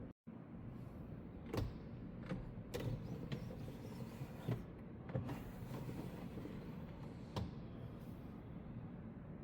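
A car's low steady rumble with scattered sharp clicks and knocks, about seven in all, over several seconds.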